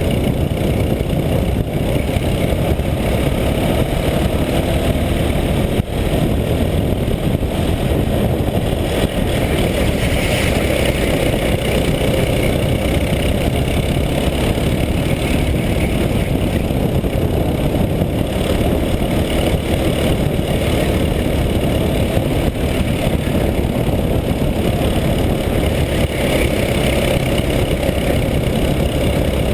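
Go-kart engine running hard through a lap, heard from a camera mounted on the kart itself, its pitch shifting a little as the kart slows for corners and speeds up again.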